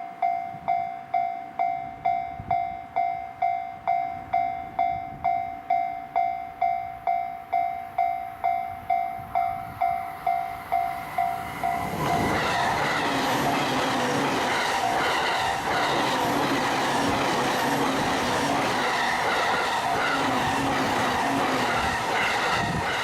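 Japanese level-crossing warning bell ringing about twice a second. About halfway, an E233-series electric train passes over the crossing at speed, and the steady rush of its wheels and running gear takes over and covers the bell.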